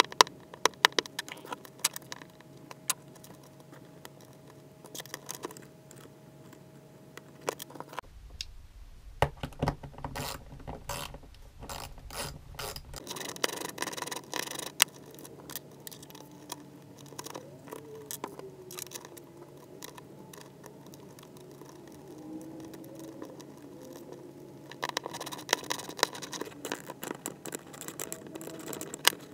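Small hardware being handled and fitted by hand: irregular clicks, taps and scrapes of screws, washers and nuts against the metal laptop lid and its hinge brackets.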